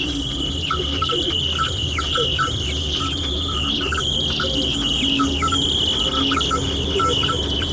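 Radio playing an unidentified signal: a steady high tone with rapid short chirping blips and quick falling squeaks over a low hum.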